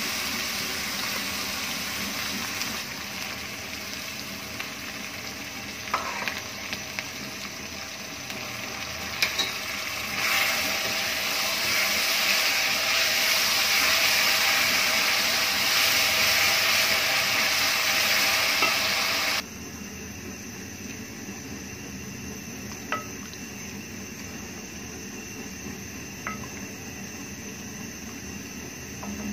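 Onion-tomato masala sizzling in hot oil in a metal pot while a wooden spoon stirs it, with a few light knocks along the way. The sizzle grows louder about ten seconds in and drops suddenly to a quieter level after about twenty seconds.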